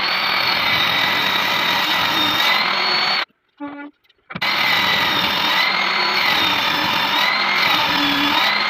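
Power tool running steadily, with a whine that rises and falls about every second and a half. The sound cuts out for about a second three seconds in, where there is a short pitched tone.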